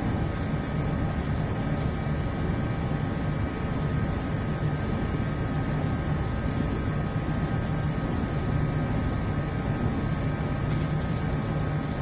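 A large cargo ship under way: a steady, unchanging drone of engine and machinery hum with a few constant whining tones, under a wash of wind and sea noise.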